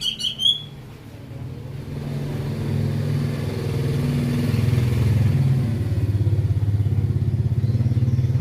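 A small engine running, growing louder over the first few seconds and then holding steady with a fast, even pulse.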